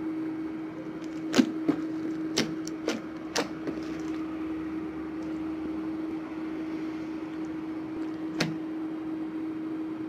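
Jiggly glue-based slime being stretched and folded by hand, giving sharp wet clicks and pops, several in the first few seconds and one more near the end, over a steady hum.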